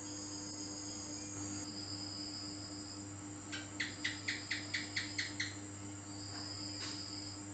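House gecko (cicak) calling: a run of about eight sharp chirps, some four or five a second, in the middle. Behind it run steady high-pitched tones and a low hum.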